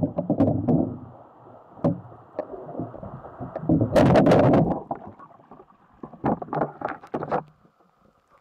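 Pool water splashing and slapping against a camera at the water line, heard through the camera's waterproof housing. The noisy wash fades in the first second, a loud splash comes about four seconds in as a toy hits the water beside the camera, and a quick run of sharp splashes and knocks follows a couple of seconds later.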